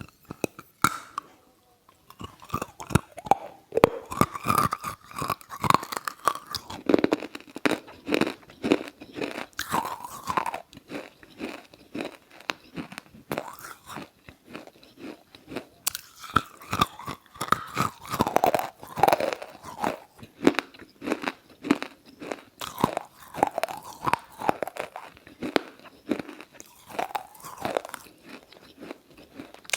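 Close-up biting and chewing of wet clay lumps, with dense, irregular sharp crunches one after another and wet chewing between them.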